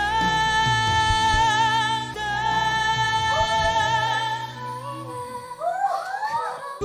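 A female voice sings a wordless vocal line in a pop ballad over instrumental accompaniment. She holds long notes with vibrato, then ends in quick melismatic runs near the end.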